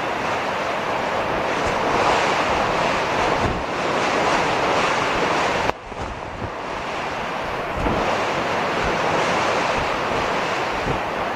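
Storm wind buffeting the microphone over the steady rush of heavy surf, with a sudden brief drop in the sound about halfway through.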